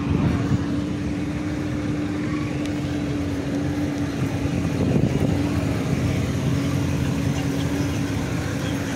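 Street traffic: engines of a line of slow-moving cars running, a steady low rumble with one steady hum held throughout.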